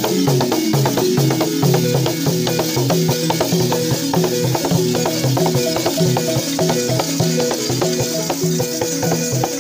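Balafon, a wooden xylophone with gourd resonators, playing a fast repeating melody, with a hand drum and rattles keeping a quick steady beat.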